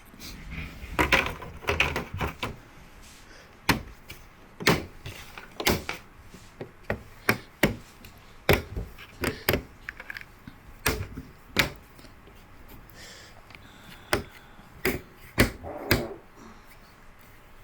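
Irregular sharp clicks and knocks of the all-in-one PC's plastic casing being handled and pressed back together, about a dozen in all, with quieter rustling between.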